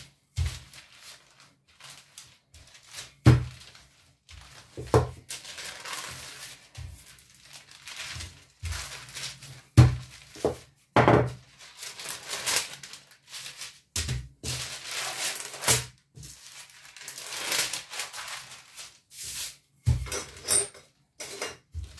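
Wooden rolling pin rolled back and forth over dough between two sheets of parchment paper: irregular rolling strokes with paper crinkling, and sudden knocks of the pin against the table now and then.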